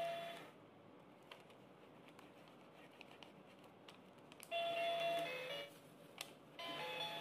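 Toy ATM piggy bank playing a short electronic tune of beeping tones as a banknote is fed into its slot, about halfway through and again near the end. Before that, a quiet stretch with a few faint clicks.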